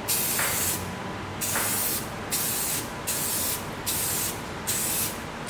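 Aerosol spray-paint can spraying in a series of short bursts, about six, each roughly half a second long with brief gaps between, as a heavy first coat of paint goes on.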